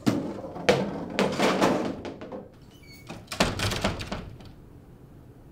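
Loud knocking and thudding in two bursts: a sudden clatter of bangs lasting about two and a half seconds, then a shorter burst of thuds a little past the middle.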